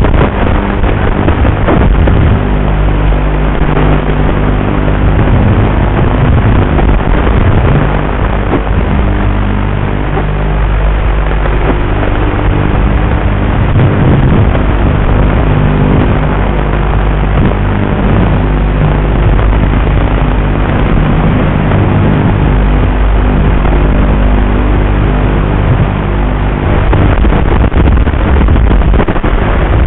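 Micro quadcopter's motors and propellers running: a loud, steady rushing noise over a low hum that shifts every few seconds.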